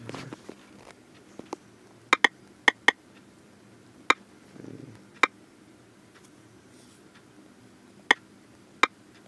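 Typing on a smartphone's touchscreen keyboard: a string of sharp, short key clicks at irregular spacing, some in quick pairs, with pauses between words.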